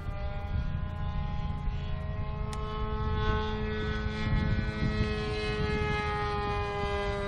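Great Planes Revolver model airplane's O.S. Max .75 glow engine running steadily at high revs in flight. Its pitch rises slightly about half a second in and then sags slowly. A low wind rumble sits under it.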